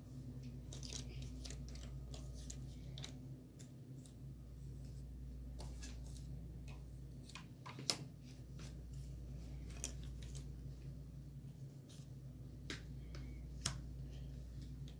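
Cardboard jigsaw puzzle pieces being picked up, slid and pressed together on a wooden table: scattered soft clicks and taps, with a sharper tap about eight seconds in. A steady low hum runs underneath.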